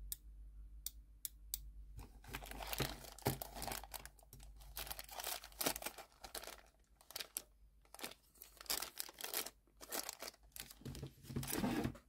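A small snap-action micro limit switch clicking about four times, then the continual crinkling of a thin plastic zip-lock bag being handled from about two seconds in.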